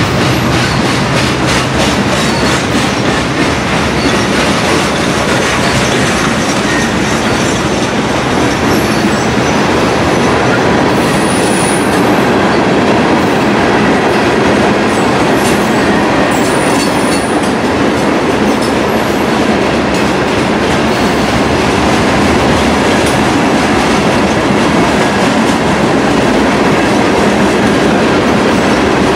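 Freight train cars rolling past close by: a loud, steady rumble of steel wheels on rail with clickety-clack over the rail joints. Brief high-pitched wheel squeals come about twelve and seventeen seconds in.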